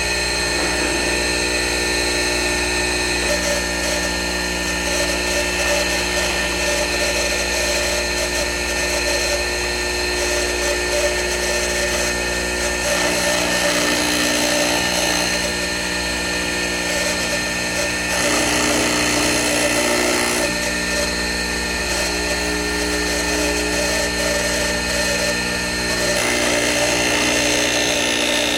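Boyar Shultz H618 manual surface grinder running steadily: an electric spindle motor hums with several steady tones, and the mix shifts slightly a few times.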